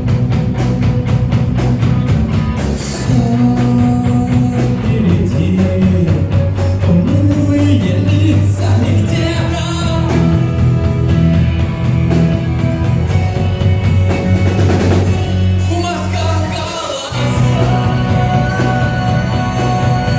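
Rock music with a drum kit, guitar and a singing voice, with a brief drop in the drums about three-quarters of the way through.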